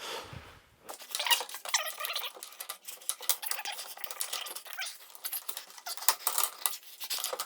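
Garage door hinge and roller hardware being handled and worked into place: a quick, irregular run of light metallic clinks, taps and scrapes starting about a second in.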